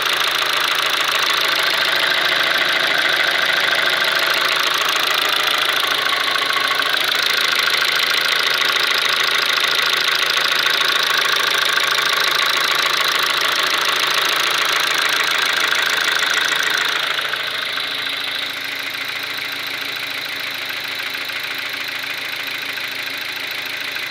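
KIA Ceed's G4FG 1.6-litre four-cylinder petrol engine running with a rapid knock, which the uploader takes for piston knock. It gets quieter about two-thirds of the way through and runs on at the lower level.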